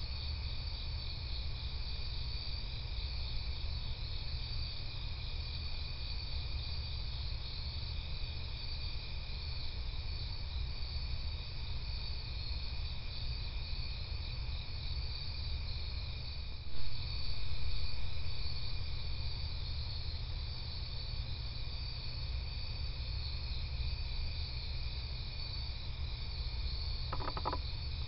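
Night insects, such as crickets, trilling steadily in a dense chorus over a low steady hum. A single brief knock about two-thirds of the way through is the loudest moment.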